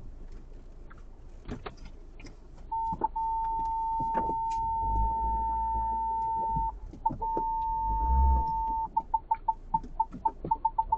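Electronic beeper sounding one steady high tone for several seconds, then breaking into short beeps that come faster and faster, with a few low thuds underneath.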